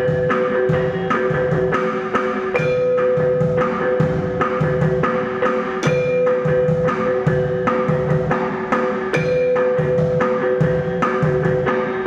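Live percussion ensemble music: struck pitched mallet instruments and knocking percussion over a steady beat of low drum thumps, about three a second, with two held tones underneath.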